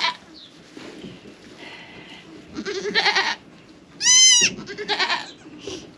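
Goats bleating, newborn kids among them: a few wavering bleats, the loudest a high, clear one about four seconds in.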